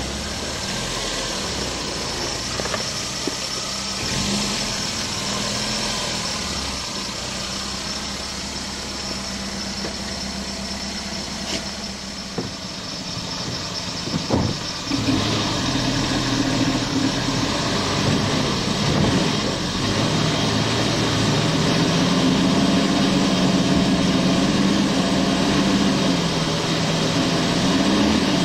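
Opel Manta's engine idling steadily. About halfway through, after a short clatter, it runs louder with its pitch rising and falling as the car is driven.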